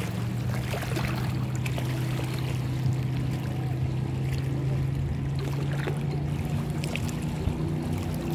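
An engine running steadily at an even low pitch, a constant drone with no revving. Its pitch steps up slightly near the end.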